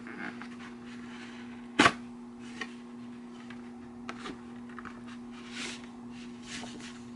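A flat cardboard mailer being torn open by hand: a sharp snap about two seconds in, then smaller clicks and bursts of cardboard rustling and tearing. A steady low hum runs underneath.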